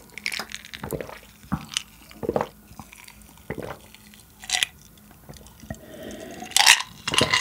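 A man gulping milk from a small glass close to the microphone, one swallow about every half second to a second, with louder sounds near the end.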